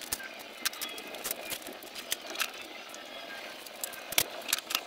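Irregular clicks and knocks of tools and parts being handled and set down in a small workshop, with one louder knock a little after four seconds in.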